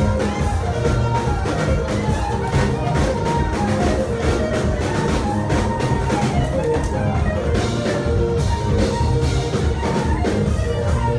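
Instrumental background music with a steady drum beat and guitar.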